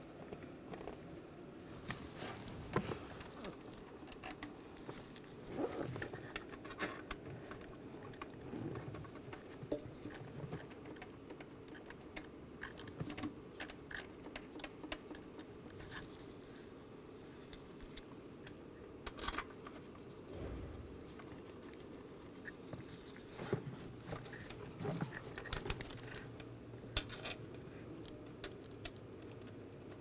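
Scattered light metallic clicks, taps and scrapes of bolts being handled and threaded by hand into an engine's intake manifold.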